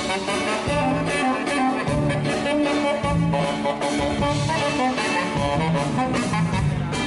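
A live band playing music with a steady beat and a moving bass line.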